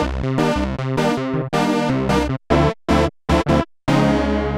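Sequential Prophet-10 analog polyphonic synthesizer playing a factory preset: bright chords in short stabs that cut off abruptly, with gaps between them, then a longer chord about four seconds in whose upper overtones fade away.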